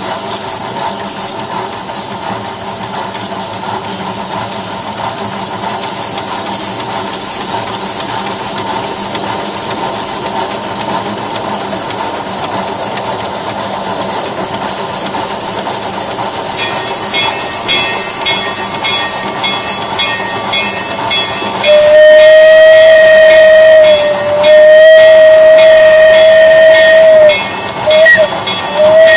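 A miniature two-foot-gauge locomotive is running with a steady rumble and hiss. Partway through, its bell starts ringing in quick, even strokes. Then the whistle gives two long blasts, a couple of short toots and another long blast as it nears a crossing.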